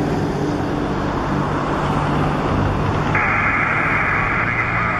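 Boeing 737 MAX 8's CFM LEAP-1B jet engines at takeoff thrust during the takeoff roll, a steady roar heard from far off. About three seconds in, a steady high buzzing joins it.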